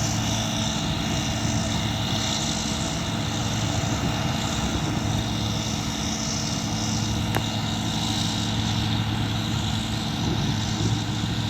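Combine harvester running steadily while harvesting wheat: a constant engine and machinery drone with a low hum. A single sharp click comes about seven seconds in.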